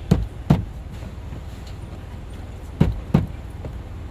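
A fist thumping a black mounting bracket against a car's interior side trim panel, pressing its double-sided tape down. There are four blows in two pairs, one pair just after the start and the other near the end.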